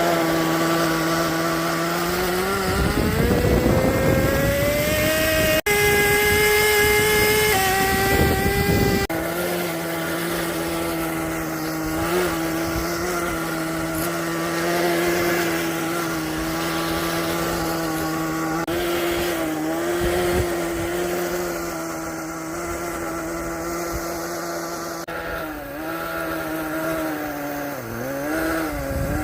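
Small nitro glow engine of a Kyosho Blizzard RC snow vehicle running, with a high-pitched buzz. It revs up a few seconds in and holds high for several seconds, then drops back to a steady idle with a few brief blips and a wavering dip near the end.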